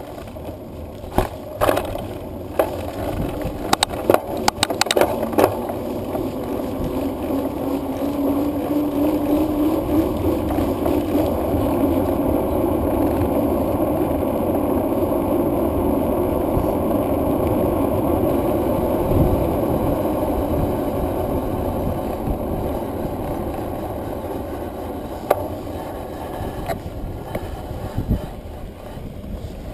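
Wheels rolling over tarmac with a steady rush of wind on the microphone of a moving mounted camera. There are knocks and rattles in the first few seconds and again near the end, as it goes over rough path and road edges. The rush swells in the middle, and a faint rising hum comes about eight seconds in.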